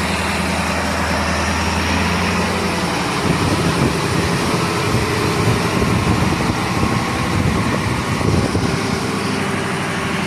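KamAZ truck's diesel engine running, a steady low idle for the first three seconds, then rougher and uneven from about three seconds in before settling back to a steady note near the end.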